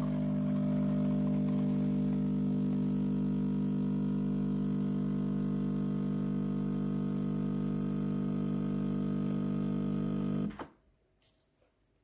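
Espresso machine's vibration pump humming steadily, then cutting off suddenly about ten and a half seconds in.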